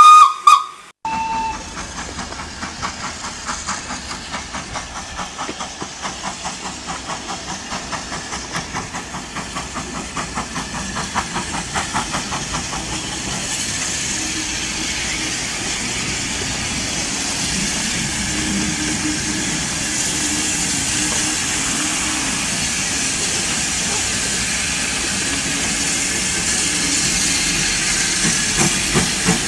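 A small saddle-tank steam locomotive gives a brief, loud whistle, then pulls away with a regular beat of exhaust chuffs. After that comes a steady hiss of steam as it draws off.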